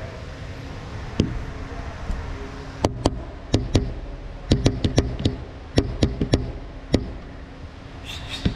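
Tapping on the glass front of a cobra enclosure: about fifteen sharp knocks in irregular clusters, coming fastest in the middle.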